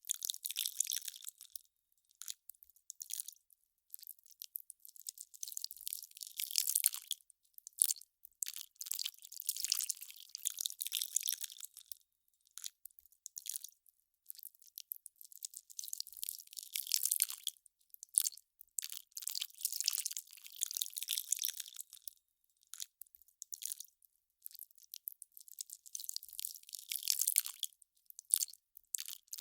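Melting ice crackling and popping: irregular bursts of fine, high-pitched crackle with short gaps between them.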